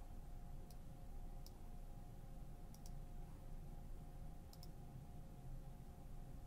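Faint computer mouse clicks, some single and some in quick pairs, over a steady low hum.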